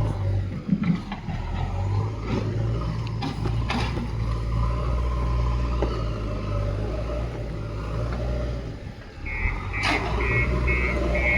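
JCB backhoe loader's diesel engine running steadily with a low drone, with a few sharp knocks. From about nine seconds in, its reversing alarm beeps a little more than twice a second.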